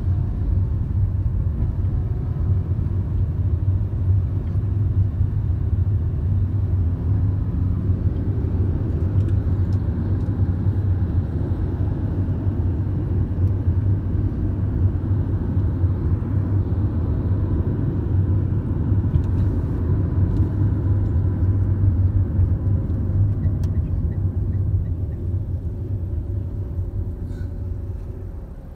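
Road and engine noise inside a moving car's cabin: a steady low rumble of tyres and engine that dies down near the end as the car slows.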